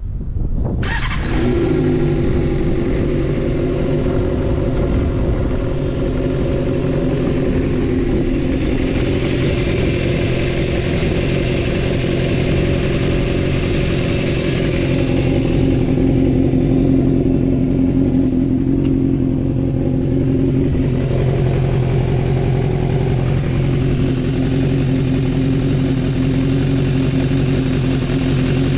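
Suzuki Bandit 250V's inline-four engine, breathing through a Pretty Racing short aftermarket exhaust, starting about a second in and then idling steadily. The seller describes the engine as having no abnormal noise.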